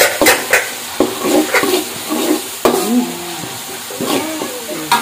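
Spatula stirring and scraping spring onions, ginger and chili paste frying in a pan, with hot oil sizzling steadily under repeated sharp scrapes and knocks of the spatula against the pan.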